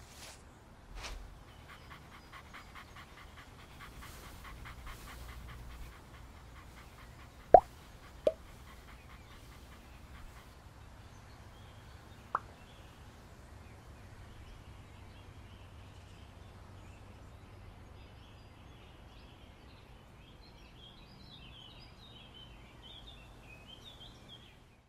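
A dog panting quickly for a few seconds over a quiet park ambience, then three short, sharp sounds that fall in pitch, two close together and a third about four seconds later. Faint birds twitter near the end.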